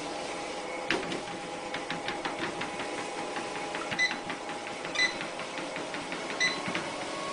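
Treadmill running with a steady motor whine, with a scatter of light clicks over it and three louder, sharp clicks about four, five and six and a half seconds in.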